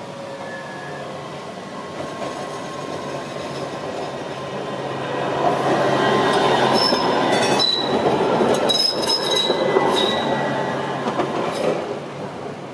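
AnsaldoBreda Sirio low-floor tram passing close by on curving street track: a rumble that swells as it comes alongside and fades as it goes, with short high-pitched wheel squeals and several sharp clicks from the wheels on the rails while it passes.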